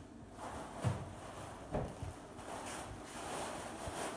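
Rustling of a plastic bag being handled and opened, with a few soft knocks.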